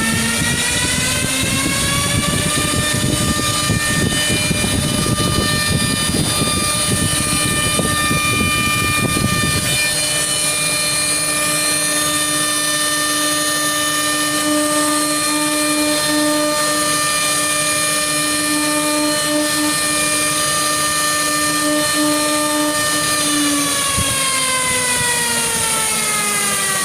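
CNC router spindle whining as it spins up over the first couple of seconds, running at a steady pitch, then winding down near the end. A rough low rumble runs under the whine for about the first ten seconds, then gives way to a steady lower hum.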